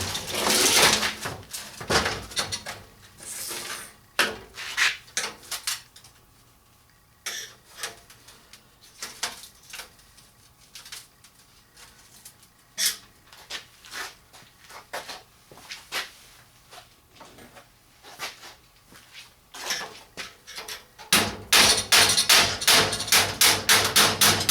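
Metal hinge and sheet-metal door parts being handled and shifted on a metal bench: scattered knocks, clinks and scrapes. Near the end comes a fast run of clicks, about six a second.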